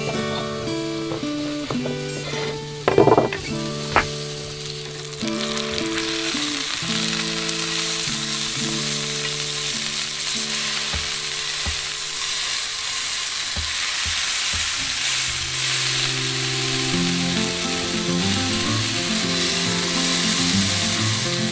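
Steak frying in a cast-iron skillet: a steady sizzle that starts about five seconds in and grows a little louder toward the end. Before it, a few knife knocks on a wooden board, and soft background music with held notes plays throughout.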